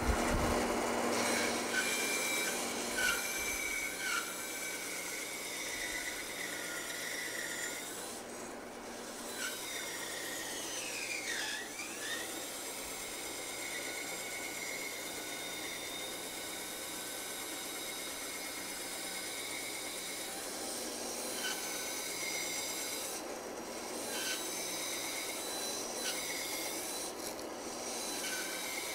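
Small benchtop bandsaw cutting slowly through a thick wooden spoon blank: a steady rasping hiss of the blade in the wood over the machine's faint whine. The rasp eases briefly twice.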